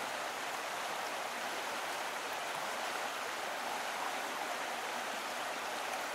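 Steady, even rushing noise like a stream or rain, with no notes in it, opening a song's recorded intro.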